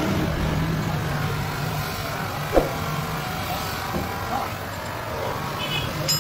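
Bench-mounted electric polishing motor running steadily with its abrasive pad grinding against a headlight lens as the foggy lens is buffed. A single sharp click, with a brief falling squeak, comes about two and a half seconds in.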